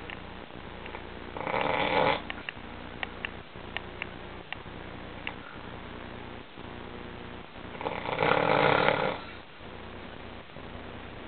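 Snoring in sleep: two loud snores about six seconds apart, the second longer, with a few faint clicks in between.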